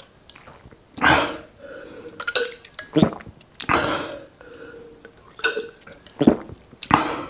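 A man gulping beer from a glass mug: a series of loud swallows and breaths, about one a second.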